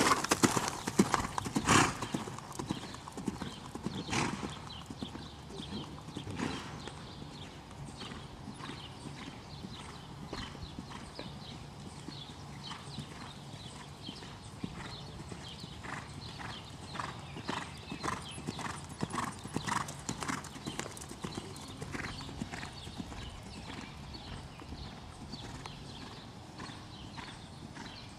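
Hoofbeats of a horse cantering on a sand arena, a steady run of dull thuds. They are loud for the first couple of seconds as the horse passes close, then fainter as it moves off around the ring.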